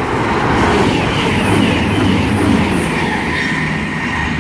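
Voyager diesel multiple unit passing through the station at speed: a dense, steady rush of wheel and air noise over a low engine hum, with rapid rail clatter.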